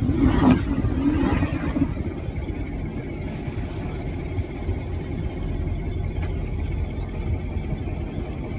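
A Chevrolet Corvette driving at speed: a steady low engine rumble with road noise, a little louder in the first second or two.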